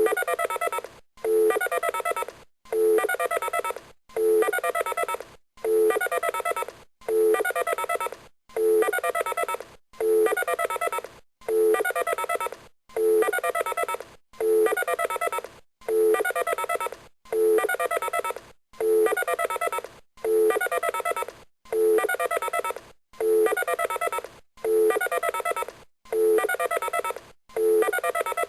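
Telephone keypad dialing tones: a rapid run of short dual-tone beeps, repeated identically about every second and a half in a loop.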